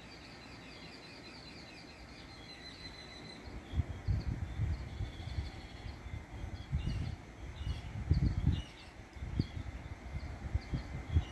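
Birds chirping and twittering steadily. From about a third of the way in, irregular low rumbling gusts of wind buffet the microphone and are the loudest sound.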